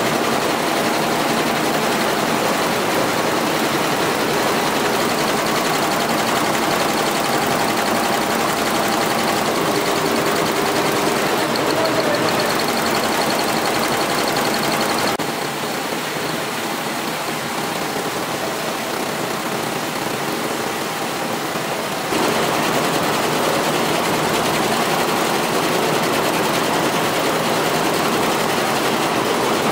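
Multi-head computerised embroidery machine running, its many needle heads clattering rapidly and steadily as they stitch. The sound drops a little about fifteen seconds in and comes back up a little after twenty-two seconds.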